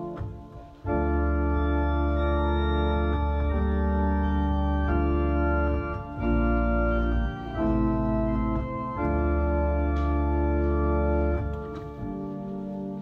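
Organ playing held chords over a deep pedal bass, coming in about a second in, with the chords changing every second or two and the bass dropping away near the end.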